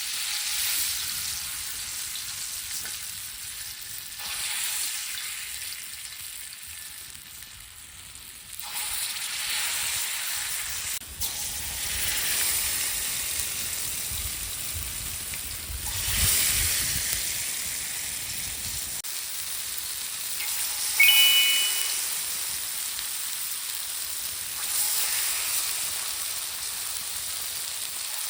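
Chicken leg pieces frying in oil on a tava: a steady sizzle that swells and eases every few seconds. A short high-pitched tone sounds about three quarters of the way through.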